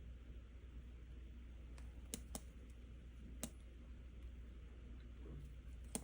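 Computer keyboard keys clicking a few times at irregular intervals: a cluster of clicks about two seconds in, one more a second later, and a pair near the end, over a faint steady hum.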